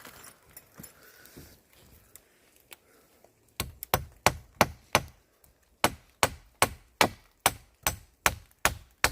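Hammer driving nails into wood: after a quiet start, a run of sharp, even strikes about two and a half a second begins about three and a half seconds in, with a short pause partway through.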